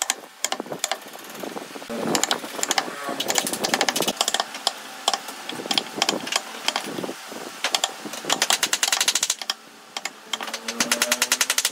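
Wooden mallet striking a steel chisel cutting into a hardwood slab: irregular knocks, with quick runs of rapid taps about two thirds of the way in and again near the end.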